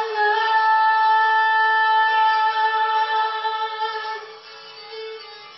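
A woman's solo singing voice holding one long, high note for about four seconds, then fading away about four seconds in. A softer steady lower tone carries on beneath it.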